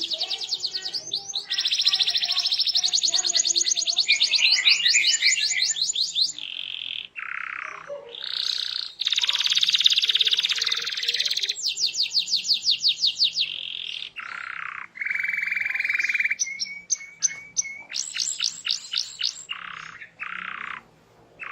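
Domestic canary singing vigorously: a continuous song of fast trills and buzzy rolls, changing every second or two, with a few short steady whistled notes in the middle.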